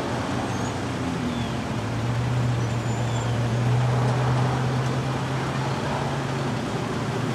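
Road traffic moving across a railroad crossing: cars and an SUV driving over the tracks, with a steady engine hum that swells about two seconds in and eases off near the end.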